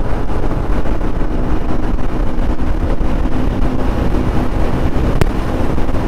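Motorcycle engine running steadily at riding speed in sixth gear, with wind rushing over the microphone.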